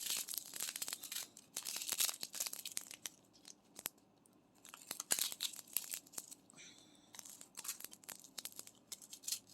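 Small plastic bags of diamond-painting drills being handled and torn open, with crinkling and tearing in irregular spells and scattered light clicks between them.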